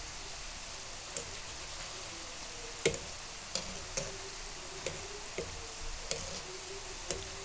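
Gulab jamun dough balls deep-frying in hot oil in a kadai: a steady sizzle with scattered sharp ticks and pops, the loudest about three seconds in.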